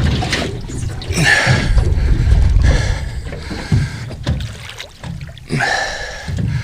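Splashing and knocking around a small fishing boat as a snapper is landed, with two noisy bursts of splashing, one about a second in and one near the end.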